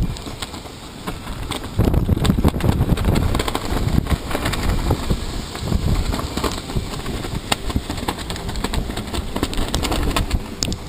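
Hurricane wind gusting around a sailboat, buffeting the microphone with a heavy low rumble, with rain and scattered sharp knocks and clicks. The gusting picks up sharply about two seconds in.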